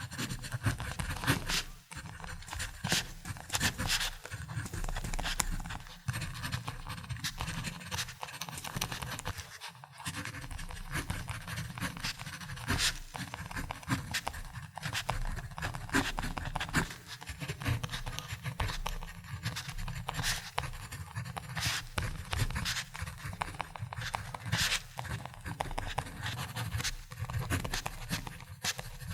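Ballpoint pen writing on paper: continuous scratchy strokes with frequent short sharp ticks as the tip moves and lifts.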